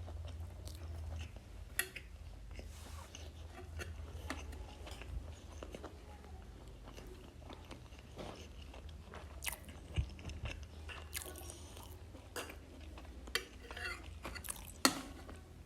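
Close-miked chewing and mouth sounds of someone eating vegan momo dumplings, with scattered small clicks and a few louder ones.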